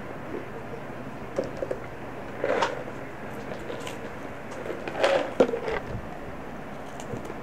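Steady low hiss with two brief bursts of handling noise, about two and a half seconds in and a louder cluster around five seconds in.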